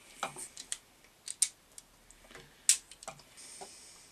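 Hand crimping and wire-cutting tool clicking and snipping as it cuts back the end of a wire lead: a string of irregular sharp clicks, loudest about a second and a half in and again near three quarters through.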